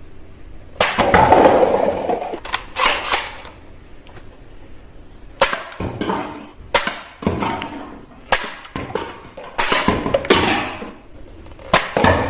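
Plastic toy guns being worked and fired: about ten sharp clicks and snaps at irregular intervals, some followed by a short clatter.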